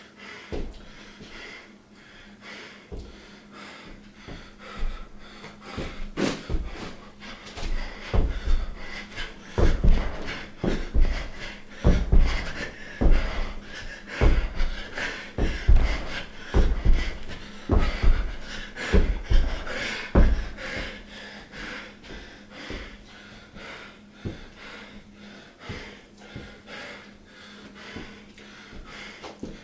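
Heavy panting breath from someone training while sick, with a run of thuds about once a second through the middle.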